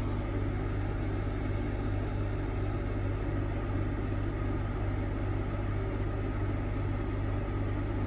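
Heron 2.2 (Air Command) caravan rooftop air conditioner running with both compressor and fan on under full cooling load: a steady hum with a strong low drone.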